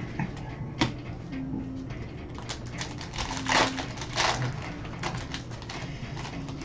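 Football trading-card packaging being handled and opened: crinkling and rustling of cardboard and wrapper with scattered clicks and taps, loudest from about two and a half to four and a half seconds in.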